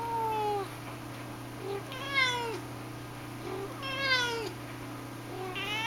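A cat meowing repeatedly: drawn-out meows about every two seconds, each falling in pitch, with short, soft chirps between them. The loudest meow starts right at the end.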